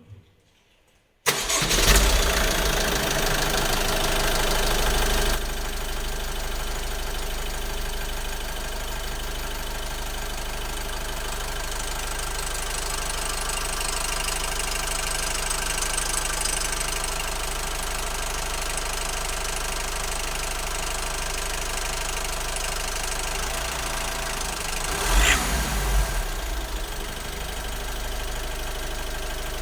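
Honda Civic 1.6 i-DTEC four-cylinder turbodiesel starting about a second in. It runs a few seconds at a higher, louder idle, then settles into a steady idle, with a brief louder swell near the end. The idle carries the strange noise the owner is asking about, which is not identified.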